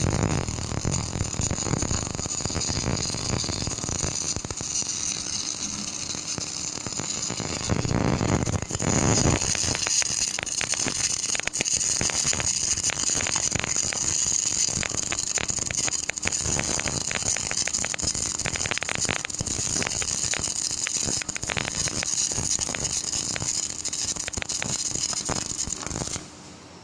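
Electric arc welding: the arc crackles and hisses steadily for about 26 seconds, then cuts off suddenly near the end as the arc is broken.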